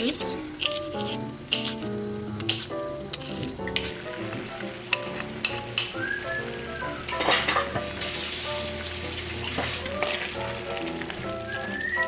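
Ground beef and tomato sauce sizzling in a skillet as chopped pickled jalapeños are tipped in off a wooden cutting board and stirred in with a silicone spoon. A few sharp knocks come in the first few seconds, and the sizzle grows brighter about four seconds in.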